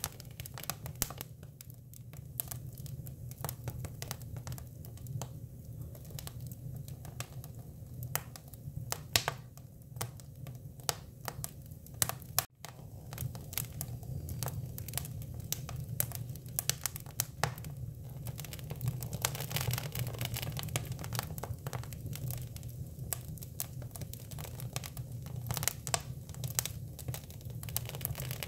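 Hinoki cypress wood burning: a dense, irregular stream of sharp crackles and pops over a steady low rumble, with a split-second break about twelve seconds in.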